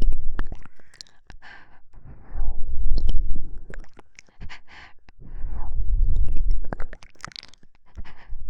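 ASMR mouth sounds close to the microphone: many wet clicks and smacks. About every three seconds a soft breath blows on the microphone, making a low rumbling swell.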